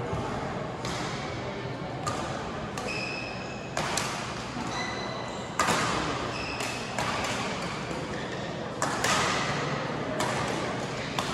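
Badminton rally in a large sports hall: sharp racket strikes on the shuttlecock at irregular intervals, about a dozen in all, with short high squeaks of court shoes, over steady hall noise from the surrounding courts.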